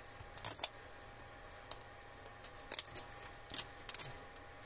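Hands handling and picking at a small cardboard box, with a hand tool touching it near the end: a few scattered light clicks and scrapes, roughly one every second.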